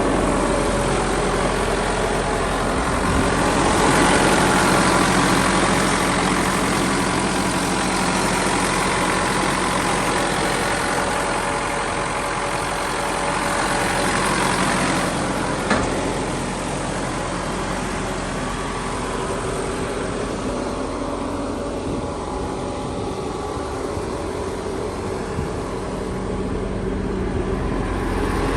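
Bobcat T650 compact track loader's diesel engine running steadily. It swells louder between about three and six seconds in and again around fifteen seconds. A single short knock comes near sixteen seconds.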